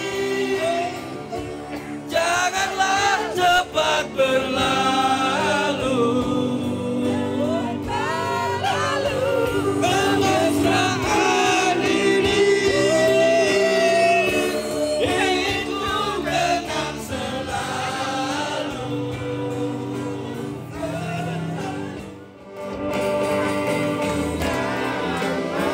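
A group of people singing a song together over accompanying music, with a brief lull about three-quarters of the way through.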